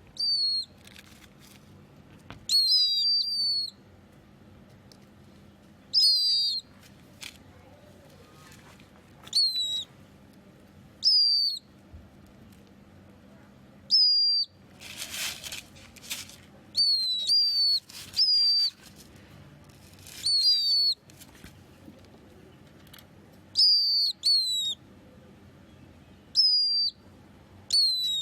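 A pet bird of unidentified species calling: short, high whistled notes that dip in pitch, repeated every one to three seconds, some in quick pairs. About halfway through comes a brief rustling burst.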